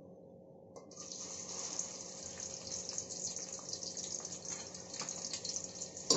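Sliced onions dropped into hot cooking oil, sizzling and crackling steadily from about a second in. A sharp metallic knock near the end as a spatula strikes the pot.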